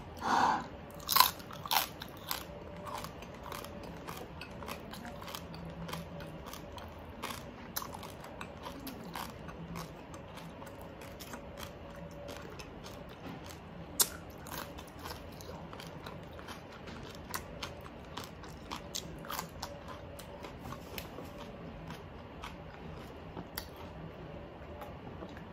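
A person biting and chewing crispy, crunchy roast pork skin close to the microphone: a long run of sharp crunches, loudest in the first couple of seconds, with cucumber crunched in among them.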